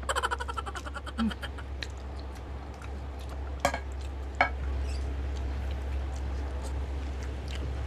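Mukbang eating sounds: a ladle scooping broth from a glass dish, with two sharp clinks about three and a half and four and a half seconds in, over a steady low hum. A brief vocal sound comes right at the start.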